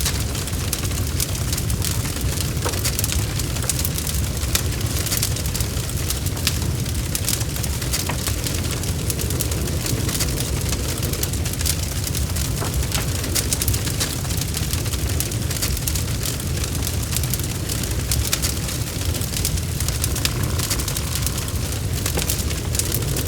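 Wood fire burning in a fireplace: a steady low rumble of flames with frequent small crackles and pops from the burning wood.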